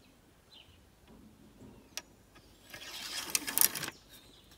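A single scraping rub lasting about a second, near the middle, after a faint click.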